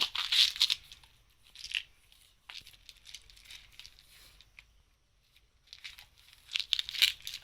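Packaging being handled: crinkling and rustling in short bursts, loudest in the first second and again near the end, with quieter stretches between.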